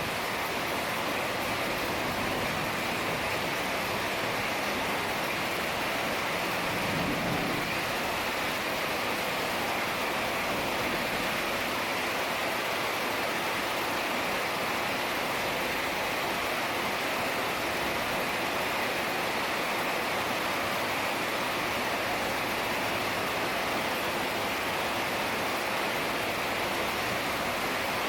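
Heavy rain falling steadily, an even, unbroken hiss of water.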